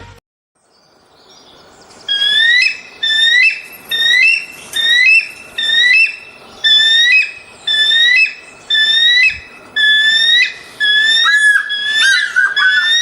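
Eagle calls: a series of short, high, whistled notes, each sliding up and then down, repeating about once every 0.7 seconds. Near the end the notes come faster and more tangled.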